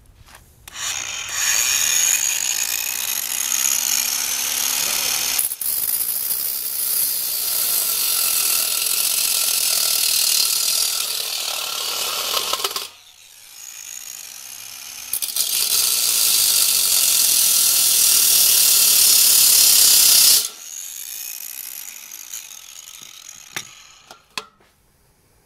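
DeWalt angle grinder with a cutting disc running and cutting into a thin steel ring: a loud, hissing grind for about twelve seconds, a short easing off, then a second, louder cut that stops abruptly about twenty seconds in. A quieter sound fades out over the following few seconds as the disc winds down.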